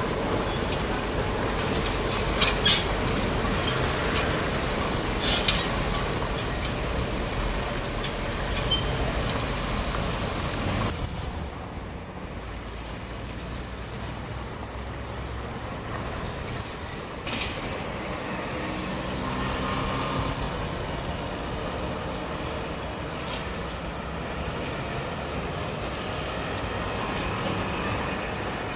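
Street traffic with trolleybuses running: first the noise of a passing articulated trolleybus, with several knocks and clanks. After a sudden drop in level, quieter steady road traffic follows.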